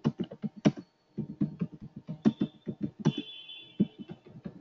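Typing on a computer keyboard: a rapid run of keystrokes with a brief pause about a second in.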